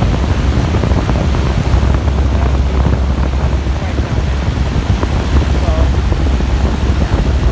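Goodman packaged air conditioner running: a loud, steady rush of air from the condenser fan over a low hum from the compressor.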